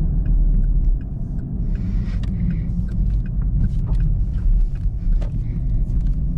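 2021 Camaro SS's 6.2-litre V8 running at low speed, with scattered sharp exhaust pops and crackles.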